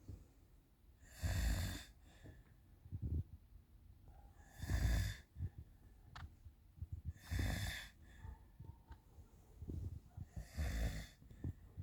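Loud snoring: four snores about three seconds apart, each a rasping rush of breath, with faint soft knocks in between.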